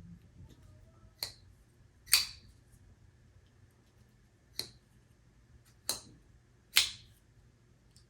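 Vero mini Axon folding knife being flicked open and shut by hand: five sharp metallic clicks of the blade swinging and locking, the loudest about two seconds in and again near seven seconds.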